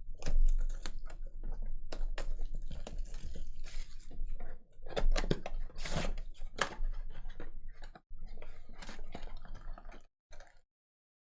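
Trading-card box and packs being opened by hand: irregular crinkling, tearing and clicking of cardboard and wrappers. It stops abruptly shortly before the end.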